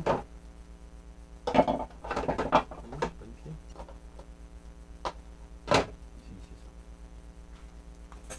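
Hard plastic Playmobil pieces clicking and clattering as they are handled and set down on a table: a quick run of rattles about a second and a half in, then a few single sharp clicks, over a steady low hum.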